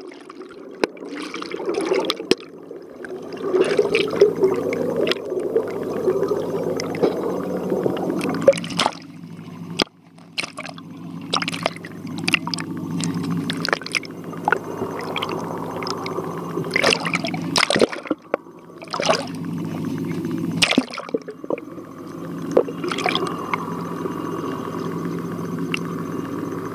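Water swirling and bubbling around a camera held underwater, with many irregular clicks and knocks and a steady low hum underneath.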